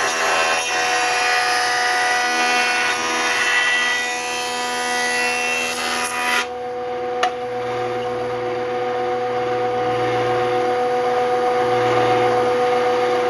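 Delta jointer running with a steady whine while the edge of a maple and purpleheart board is fed across its cutterhead, shaving the edge flat; the cut stops about six seconds in and the jointer keeps running without cutting, with a single click soon after.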